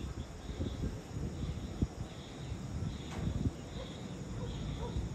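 Wind buffeting the microphone in uneven low rumbles, with insects chirping in short high-pitched bursts repeated every half second or so.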